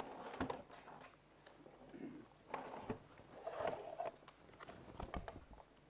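Faint scattered clicks and rustles of a small box being handled and opened.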